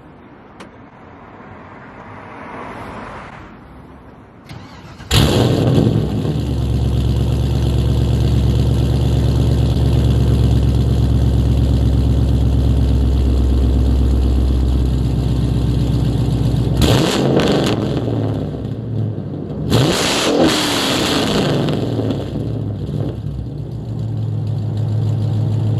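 An LS V8 engine swapped into a Nissan 240SX fires up about five seconds in and runs loud and rowdy out of the exhaust. Its throttle is blipped twice near the end before it settles back to idle.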